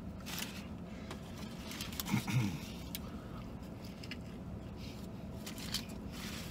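A man biting into and chewing a fried chicken sandwich, with scattered clicks and crinkles of the paper wrapper and a short low hummed sound about two seconds in, over a steady low hum.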